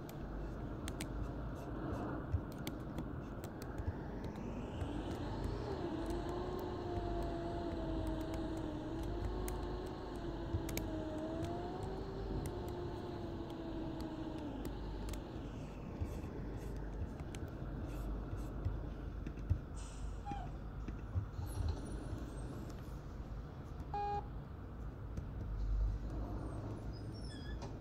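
Mercedes-Benz OC500LE bus in motion: a steady low engine and road rumble with frequent small rattles and clicks. A drivetrain whine rises about four seconds in, wavers in pitch while held, and fades away about fifteen seconds in. A brief beep sounds near the end.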